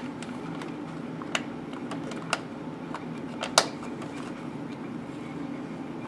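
A few small sharp clicks and ticks as the CPU cooler's thumb screws are turned and seated by hand, three of them clearest, over a steady low hum.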